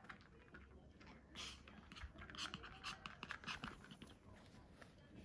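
Faint sniffing and snuffling of a Pomeranian nosing after a hidden treat. It comes in short, quick bursts, with light scratchy rustling and clicks in between.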